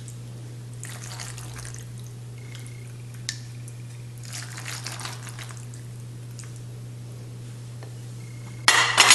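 A steady low hum with a few soft swishing sounds and a single click, while the pasta is being served. Just before the end, a sudden clatter of dishes and utensils.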